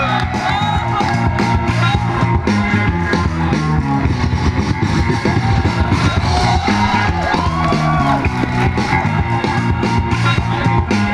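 Loud rock-style music with guitar and a steady beat, played for breakdancers.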